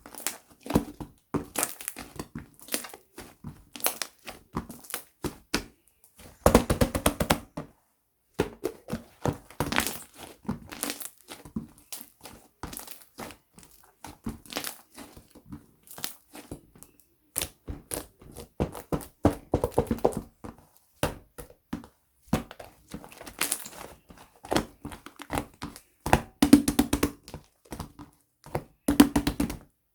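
Hands squishing, pressing and folding a thick milkshake slime, giving fast runs of crackly clicks and pops, with louder clusters every few seconds.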